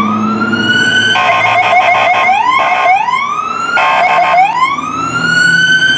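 Fire department vehicle's electronic siren sounding: slow rising wails, broken twice by about a second of rapid warbling, then a long rising wail that starts to fall at the end.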